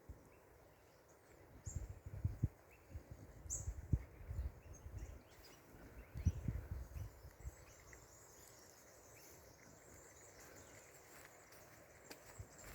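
Quiet outdoor ambience with a few faint, thin bird chirps, and irregular low bumps on the microphone in the first half.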